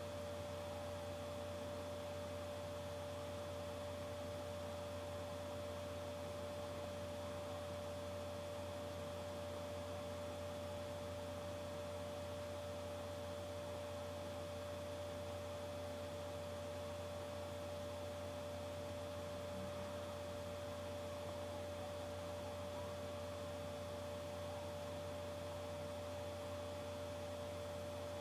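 A steady electrical hum with a constant tone above it and a faint hiss, all unchanging.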